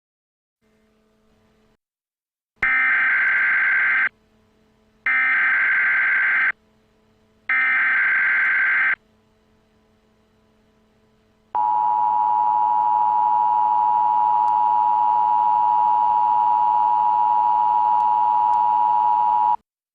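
Emergency Alert System tones: three short bursts of SAME digital header data, each about a second and a half long with a pause between them, then the steady two-tone EAS attention signal held for about eight seconds before it cuts off. This sequence opens an emergency alert broadcast.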